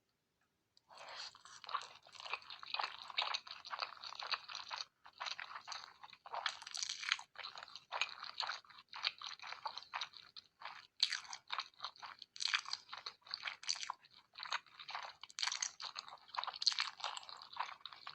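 Close-miked ASMR eating sounds: a person chewing and biting into cheesy food, with dense crunching and crackling that starts about a second in and runs on with only brief pauses.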